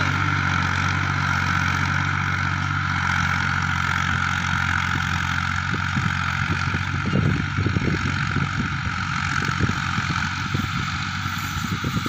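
Diesel tractor engine running steadily as it pulls a cultivator frame through dry soil, moving away. Uneven low thumps come in during the second half.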